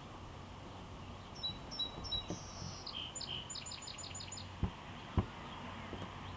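A songbird singing: a few short high notes, then a quick run of about seven notes. Two sharp clicks come a little over halfway and are the loudest sounds, over a low steady background hum.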